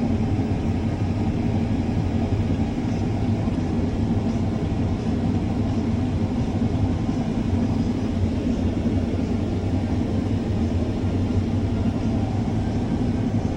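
Combine harvester running steadily while cutting wheat: a constant low drone of engine and machinery, heard from inside the cab.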